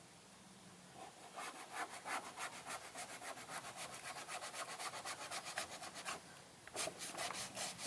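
Quick back-and-forth rubbing of an applicator working trim restorer into dry plastic car trim, about five strokes a second. It starts about a second and a half in, pauses briefly near six seconds, then resumes.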